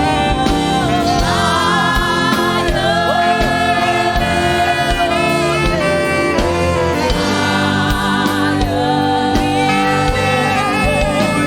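Gospel praise-and-worship music: voices singing long held notes with vibrato over a band with a steady beat.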